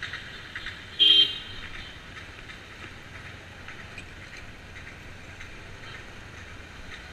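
A short, loud horn toot about a second in, over a motorcycle engine running steadily at low speed.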